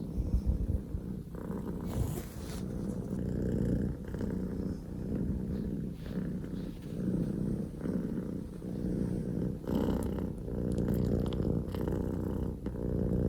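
Scottish Fold kitten purring loudly and steadily, close to the microphone, the purr swelling and dipping with each breath about once a second.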